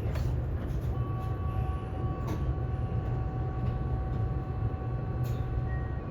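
Kintetsu 22000/22600-series limited express train running: a steady low rumble with a few sharp knocks, and a steady high whine that sets in about a second in.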